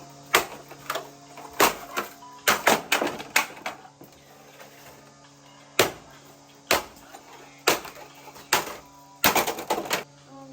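A series of sharp knocks at irregular intervals, some in quick clusters, over a steady low hum.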